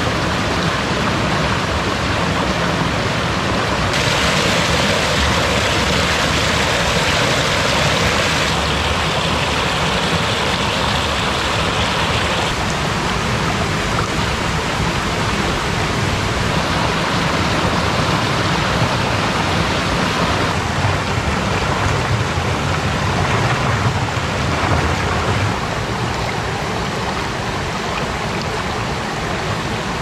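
Mountain valley stream rushing steadily. The water noise shifts in brightness several times, growing hissier about 4 seconds in and duller again about halfway through.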